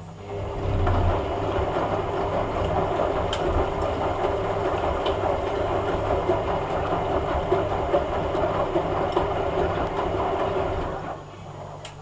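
Hoover A3786 Logic Deluxe washing machine running during its rinse, a steady mechanical rumble with a faint hum that starts suddenly just after the start and stops about eleven seconds later.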